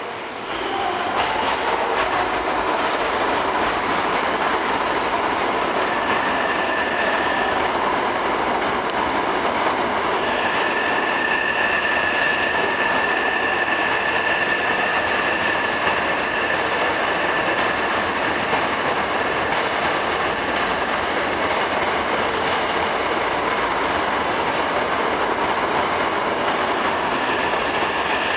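Hankyu electric commuter trains moving slowly through the station: a steady rumble of wheels on the rails. A high, steady wheel squeal comes in about six seconds in, again from about ten seconds in for several seconds, and once more near the end.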